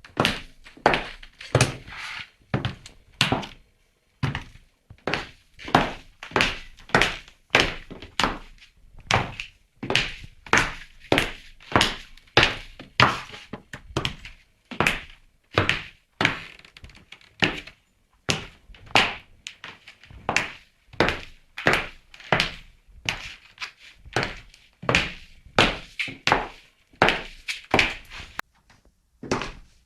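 High-heeled shoes walking on a hard floor: a steady series of sharp heel strikes, about two a second, pausing briefly twice.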